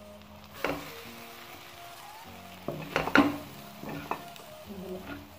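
Boiled rice dropped into a metal pan of frying vegetables and egg and stirred in with a spatula: a low sizzle under several sharp knocks and scrapes of the spatula on the pan, the loudest about three seconds in.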